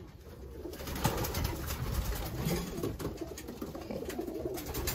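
Many homing pigeons cooing together in their loft: an overlapping chorus of low, warbling coos that swells about a second in.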